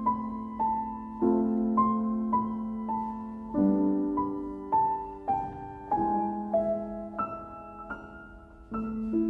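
Slow piano music: a melody of single struck notes, about one to two a second, over held lower notes.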